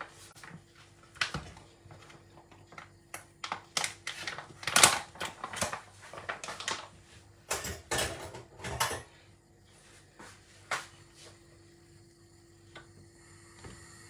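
Irregular clicks, knocks and short scraping rustles of kitchen utensils and a container being handled, loudest about five seconds in and dying away after about eleven seconds, over a faint steady hum.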